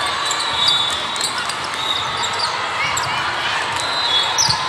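Indoor volleyball play in a large hall with many courts running at once: volleyballs are struck and bounce, and athletic shoes squeak in short high chirps on the court flooring, over the steady din of the hall.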